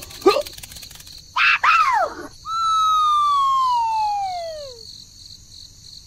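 Cartoon-style sound effects: short rising-and-falling chirps, then a long tone that glides steadily downward for about two seconds and fades out.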